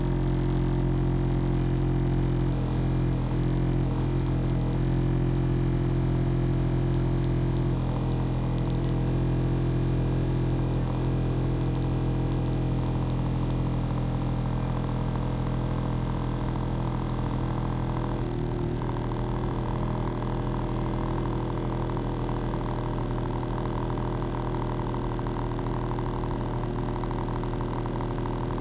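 An engine running steadily, a low even drone that holds its pitch throughout.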